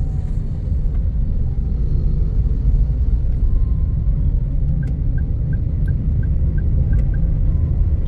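Steady low rumble of a car's engine and tyres heard from inside the moving car's cabin. Partway through comes a short run of about eight quick high beeps, roughly three a second.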